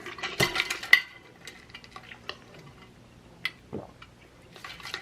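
Small desk handling sounds of paper and planner supplies: a quick cluster of rustles and clicks in the first second, then scattered soft ticks and one short knock near the end.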